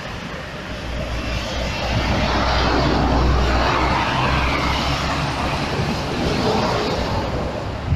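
Heavy tow truck's diesel engine running, a steady low drone that swells about two seconds in and eases off toward the end.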